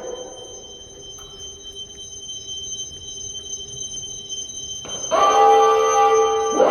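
Bolid Rokot fire-alarm voice warning system sounding its attention signal between spoken announcements: two long, loud chime-like tones, the first starting about five seconds in. Before them the loudspeakers give only a faint steady high whine.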